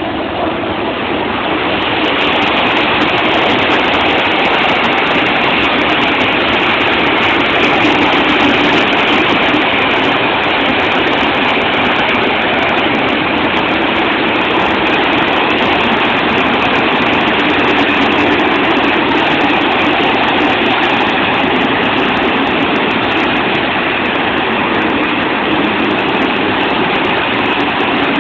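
A long freight train of open wagons rolling past: a steady, loud rumble and rattle of steel wheels on the rails, building over the first couple of seconds as the electric locomotives give way to the wagons.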